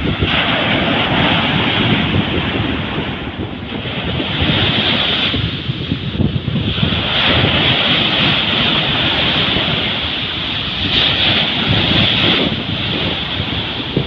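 Surf: small waves breaking and washing up a sandy beach, a steady hiss that swells every few seconds as each wave comes in, with wind rumbling on the microphone.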